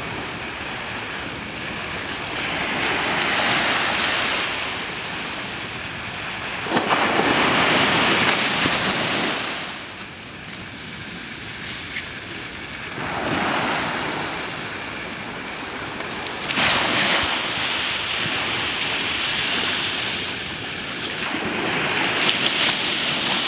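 Ocean surf on a sandy beach: waves breaking and washing up the shore, the noise swelling and falling back every four to six seconds.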